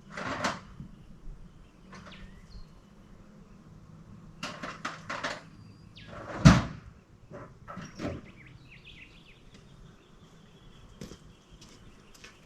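Scattered metallic clicks and knocks of hand tools working on an excavator's grease fittings, with one loud thump about six and a half seconds in.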